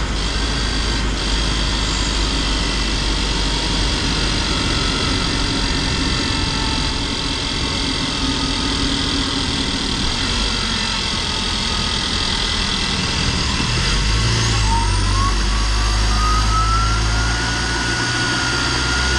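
LDV G10 petrol van driving, with a steady engine and road drone. About two-thirds of the way in, a thin whistle rises in pitch as the engine pulls and then holds steady: the annoying whistle the owner puts down to the turbo.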